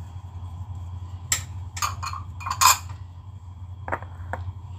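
Glass and ceramic bowls clinking and knocking against each other and the tiled counter as they are handled and set down: about five separate clinks, the loudest about two and a half seconds in, over a steady low hum.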